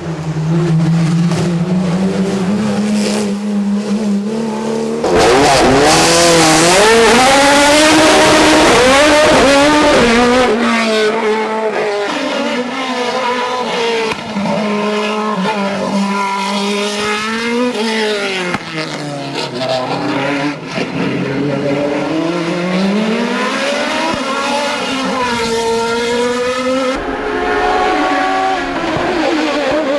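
Race car engines at full effort on a hill climb, pitch climbing hard through the gears and dropping as they brake for corners. First a Porsche 911-based GT car, then from about five seconds in a louder, higher-revving open sports prototype.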